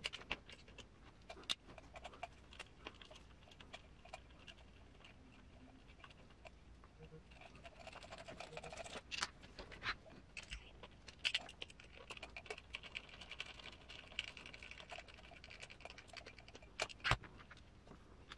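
Irregular light clicks and taps of small hand tools and metal and plastic parts being handled while working on a scale RC truck's suspension, with a few sharper clicks scattered through.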